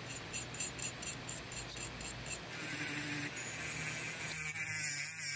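A small wire brush scrubs at the primer on a metal model bus body in quick scratchy strokes, about four a second. It is stripping off primer that failed to stick. About two and a half seconds in, the strokes give way to a steadier, brighter hiss of a small rotary-tool wheel working the bared metal.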